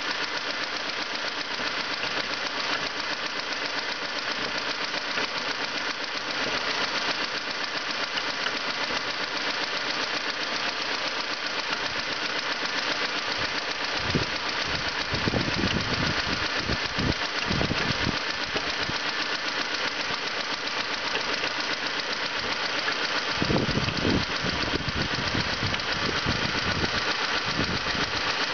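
1989 Honda Civic 1.4 GL's twin-carburettor four-cylinder engine running steadily with the unexplained weird noise that the owner is asking about. Stretches of heavier low rumble come in about halfway through and again near the end.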